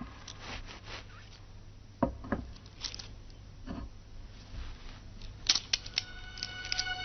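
Scattered soft clicks and knocks, a pair about two seconds in and a quick cluster near five and a half seconds, over a low hum. Background music with held notes comes in near the end.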